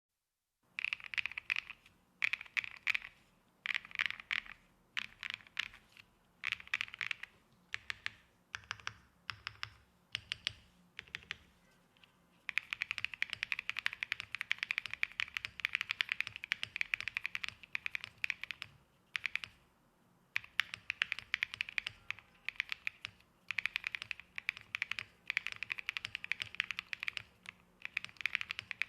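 Mechanical keyboard with Flower Shadow switches on an aluminium alloy plate being typed on. It starts with short separate bursts of keystrokes about a second apart, then changes to fast continuous typing about twelve seconds in.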